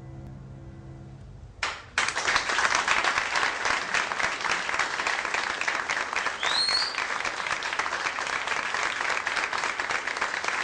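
Held music notes fade out, then an audience breaks into applause about two seconds in: dense, steady clapping, with one short high sliding note partway through.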